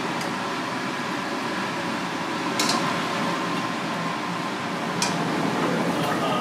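Steady fan-like rush of kitchen ventilation, with two sharp clinks, one about two and a half seconds in and one about five seconds in.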